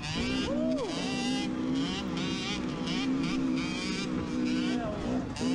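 Dirt bike engine running close to the microphone as the rider rides along, its pitch rising and falling with the throttle, with a quick rev about half a second in.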